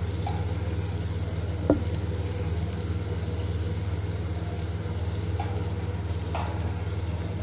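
Sliced taro root (arbi) with onions and green chillies sizzling in oil in a wok, over a steady low hum, with one sharp click about two seconds in.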